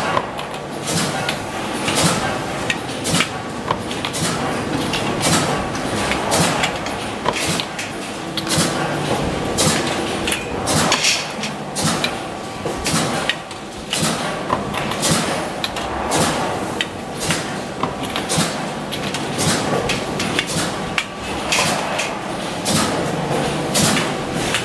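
Frequent sharp metallic clanks and knocks from steel wire dish racks being handled and pressed at a press brake, irregular, about one or two a second, over steady factory machine noise.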